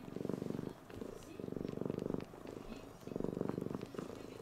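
Domestic cat purring close by, the purr swelling and easing with each breath about every second and a half, while it kneads and suckles a fleece blanket. Faint soft clicks come from its mouth working on the fabric.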